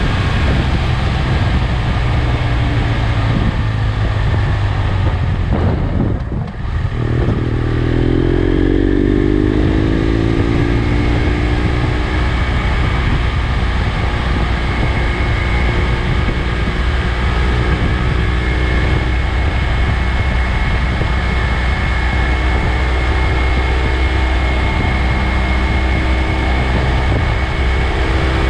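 BMW F800GS parallel-twin engine running while riding, over a steady rush of wind noise. About six seconds in the sound drops briefly, then the engine note rises and levels off into a steady cruise.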